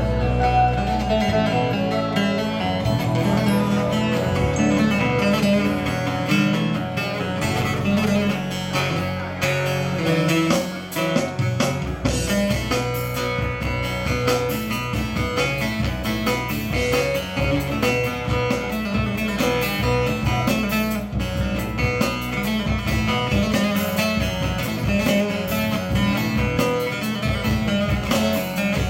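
Live Turkish folk band playing an instrumental passage: bağlama (long-necked saz) plucked over keyboard accompaniment, with a steady beat from about twelve seconds in.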